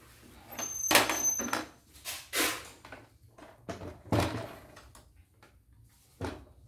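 Partly disassembled CNY E900 embroidery machine being handled on a wooden table: its plastic casing and metal frame scrape and knock in several bursts as it is lifted and turned upright, with a short thump near the end.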